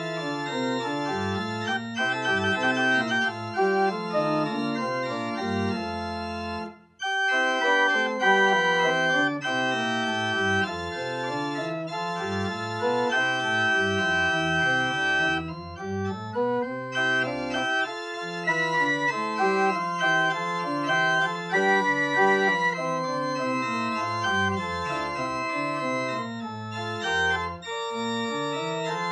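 Two-manual electronic church organ playing sustained chords over a bass line that steps up and down, with a brief pause about seven seconds in.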